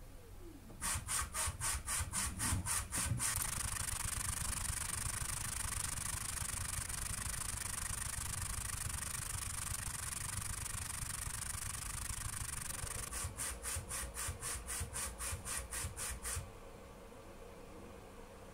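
Homemade automated PCB-making machine's motor-driven exposure carriage running during photoresist exposure, heard sped up: a rapid pulsing of about five beats a second, a long steady rasping run, then pulsing again before it stops about three quarters of the way through, leaving a low hum.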